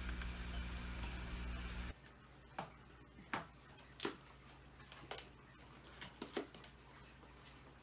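A steady low hum that cuts off suddenly about two seconds in, then scattered light scrapes, taps and rustles of hands opening a cardboard shipping box and lifting its flaps.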